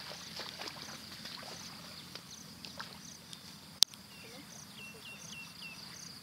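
Bare feet splashing and sloshing through shallow water in flooded grass, a scatter of uneven steps that dies away after about three seconds, over a steady high insect trill. A single sharp click comes about four seconds in, followed by a few short falling chirps.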